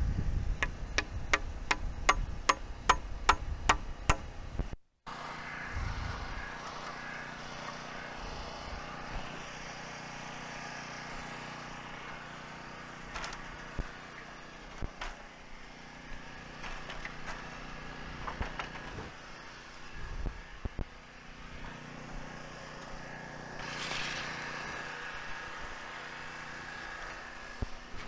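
Hammer driving nails into wood wall framing, about ten evenly spaced blows at roughly three a second, then scattered knocks of lumber being handled over a steady low hum.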